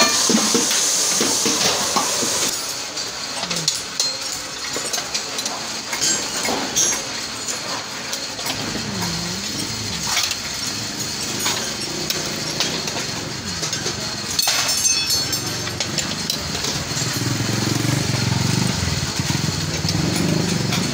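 Scattered metallic clinks and knocks of steel rods and hoops being handled, over a motor vehicle engine running in the background that grows louder near the end.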